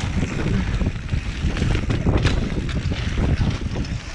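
A mountain bike rattling and knocking over a rough dirt trail at speed, with wind buffeting the microphone as a constant low rumble. A sharper knock comes about two seconds in.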